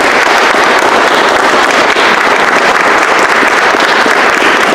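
Audience applauding steadily to welcome a speaker introduced a moment before.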